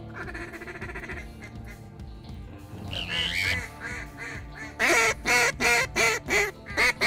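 Mallard-style quacking: a rapid series of loud, evenly spaced quacks, about three a second, setting in about two-thirds of the way through, after softer calling.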